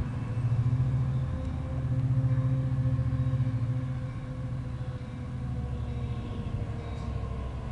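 Low, steady engine rumble of a vehicle, swelling twice in the first few seconds and easing off after about four seconds, with a faint steady higher tone above it.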